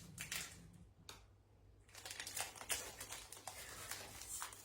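Crinkling and rustling of a chocolate bar wrapper being handled and tugged at while someone struggles to open it, with a short lull about a second in.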